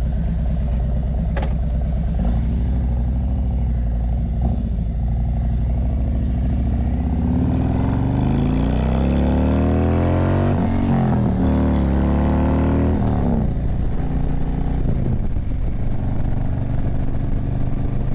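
Harley-Davidson V-twin motorcycle engine running while riding, heard from the rider's seat. Partway through, the engine note climbs in pitch as the bike speeds up, then settles back a few seconds later.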